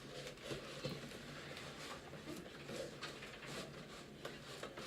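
Faint rustling and light taps of packaging being handled while a PC part is unboxed.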